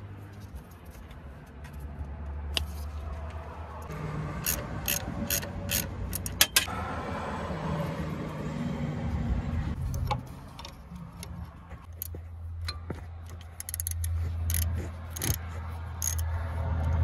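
Hand work fitting a new serpentine belt over a car engine's pulleys: scattered sharp metallic clicks and rubbing, coming in two spells of quick clicks, over a steady low rumble.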